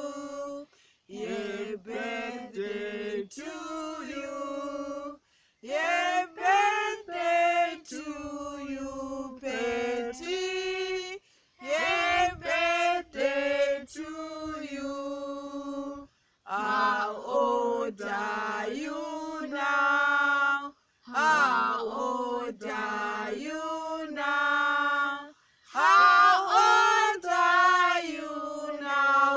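A small mixed group of voices, women, girls and a man, singing together without accompaniment, in sung phrases broken by short pauses for breath.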